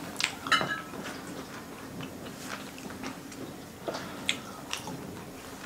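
Eating at the table: chewing and mouth noises, with a few short sharp clicks of a metal fork against a plate.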